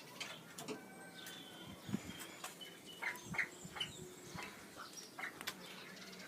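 Faint, scattered bird chirps and short calls, with a few small clicks in between.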